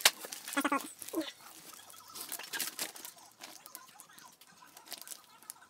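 Clear plastic vacuum-bag film crinkling and rustling in irregular crackles as it is handled and pressed down over a carbon fibre layup, with a sharp click at the very start.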